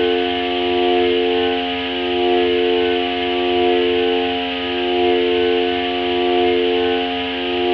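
Ambient drone from a Korg Volca Modular FM synthesizer: a stack of sustained tones swelling and fading in a slow pulse about every second and a half, over a fast low flutter.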